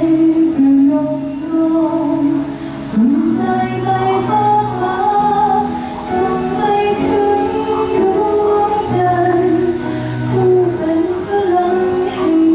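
Military band music with a female vocalist singing a slow melody in long held notes over a steady bass line.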